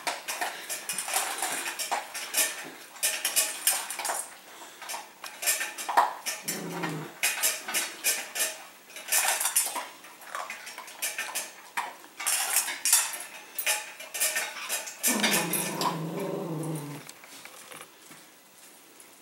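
Cavalier King Charles Spaniel nosing at its stainless-steel food bowls, which clank and rattle repeatedly against each other and the tile floor. The dog gives two low, drawn-out grumbling whines, a short one about six seconds in and a longer one near the end.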